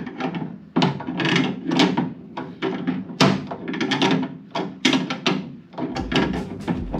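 Repeated strokes, two to three a second and unevenly spaced, of a hand tool working a coil spring compressor to back it off and release the pressure on a front coil spring. A low rumble joins in near the end.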